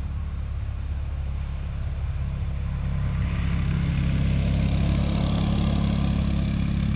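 ATV (quad) engine running as the quad approaches along the trail, growing steadily louder and peaking about five seconds in.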